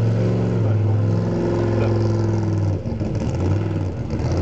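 An 850-bhp Geiser Bros Baja trophy truck's engine running at low revs as the truck rolls slowly. The note is steady, lifts a little in the middle and breaks up briefly about three seconds in.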